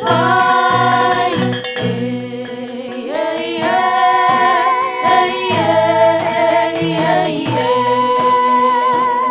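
Music: a sung theme song, voices holding long notes over an instrumental backing.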